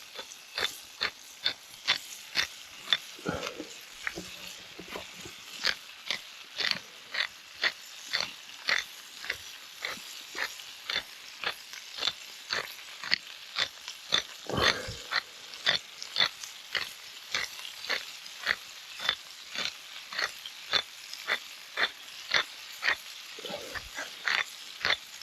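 Pepper being shaken over a pan in a steady run of short sharp clicks, about two to three a second, with a duller knock about midway.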